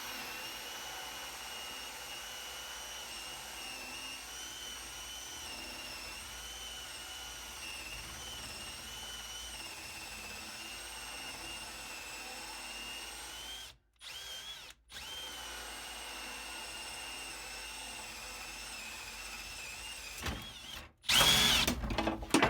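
Power drill boring a hole, running steadily with a high whine. It stops twice briefly about two-thirds of the way through, then resumes, with a louder burst near the end.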